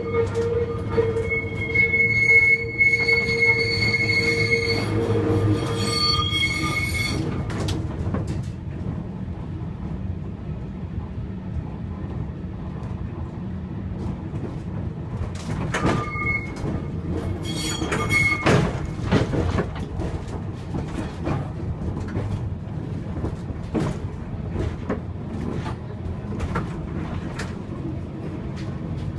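1959 Gotha T57 tram running on rails, heard from inside its wooden driver's cab. The steel wheels squeal on a curve for the first several seconds and give two short squeals again about halfway. Under this, the running rumble carries a series of clicks and knocks from rail joints and points, coming more often near the end.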